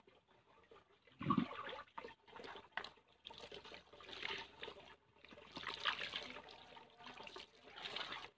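Water being poured over a person bathing: several louder splashes, the first about a second in and the last near the end, with trickling and dripping in between.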